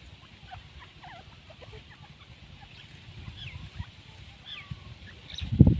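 Grey francolins giving soft, short chirping and clucking calls, scattered throughout. A loud low thump near the end.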